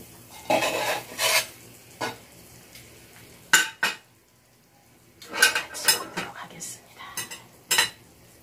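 A metal spatula scrapes across a griddle pan as a vegetable pancake is laid onto it. That is followed by a series of sharp metal clinks on a ceramic plate as the spatula and spoons are set down.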